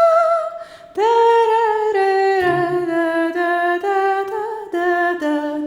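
A cappella voices singing a wordless scat or humming line: held notes that step down in pitch, with a brief break about half a second in and a low bass voice joining partway.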